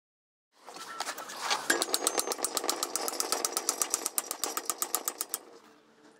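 Hammer striking a steel flat bar clamped in a bench vise, bending it over: a fast, even run of metallic taps, about eight a second, with the steel ringing. The taps stop about a second before the end.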